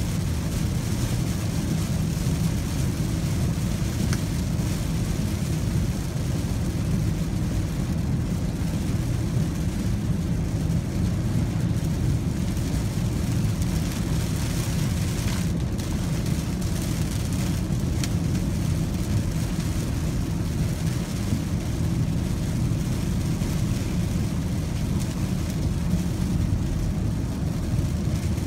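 Cabin noise inside a 2016 Audi Q5 3.0 TDI cruising at about 44 mph in heavy rain: a steady low rumble from the road and drivetrain with the hiss of rain and tyres on the wet road. A few faint ticks stand out here and there.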